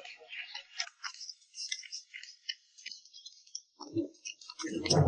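Paper banknotes rustling and flicking as a stack of hundred-yuan notes is handled and counted out, a run of small crisp clicks. A voice sounds briefly near the end.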